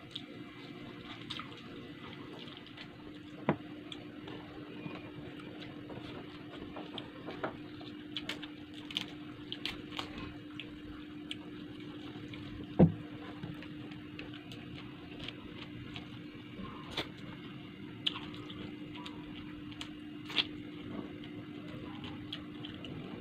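Close-miked eating sounds: wet chewing, lip smacks and mouth clicks as fish, rice and mustard leaves are eaten by hand, with one louder knock about thirteen seconds in. A steady low hum runs beneath.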